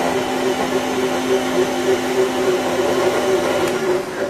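Electric mixer grinder (mixie) running at speed with a jar of cold milk, a loud steady motor whir with a steady hum. Near the end it is switched off and starts to wind down.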